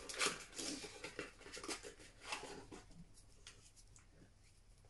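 Handling and opening a small plastic bottle: a few short rustles and clicks during the first three seconds, then fainter handling.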